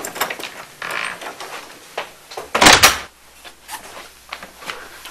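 A door opening and being shut, the shutting thud the loudest sound about two and a half seconds in, with lighter knocks and clicks around it.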